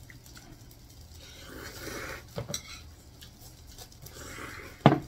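Metal chopsticks and bowls clinking as food is picked up and eaten: a couple of sharp clicks midway, and one loud clink near the end.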